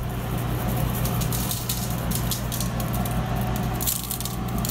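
Spice shaker shaken over raw steaks on a foil-lined tray, the seasoning rattling out in quick, irregular shakes, over a steady low hum.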